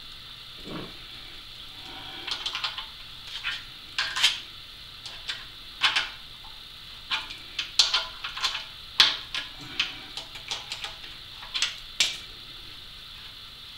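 Steel wrench clinking and tapping against the nut and threaded rod of a machinery foot under a milling machine's cast base, in irregular sharp metallic clicks, the loudest about nine seconds in.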